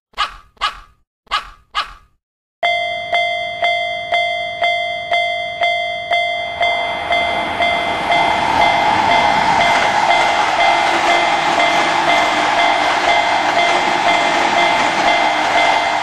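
A dog barks four times, in two quick pairs. Then a Japanese railroad crossing bell starts ringing, about three dings a second. From about six seconds in, a passing train's rushing rumble rises under the bell and carries on to the end.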